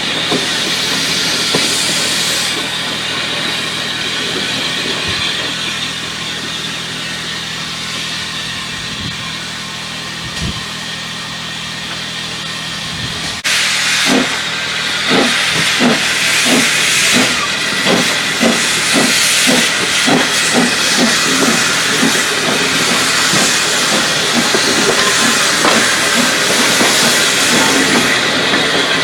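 Steam locomotive letting off a steady hiss of steam. About halfway through the sound changes abruptly to a steam train on the move, with a regular beat of about two a second over the hiss.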